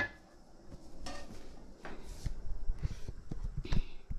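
Irregular knocks and clatters of kitchen things being handled at the counter, over a low rumble of handling noise.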